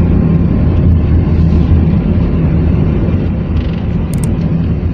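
Car engine and tyre noise heard from inside the cabin while driving: a steady low drone, with a couple of faint clicks near the end.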